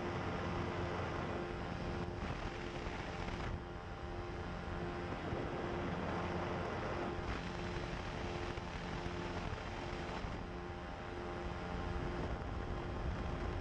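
Pterodactyl Ascender II ultralight's engine and propeller running steadily in flight: a constant pitched drone under rushing air noise that swells and eases every few seconds.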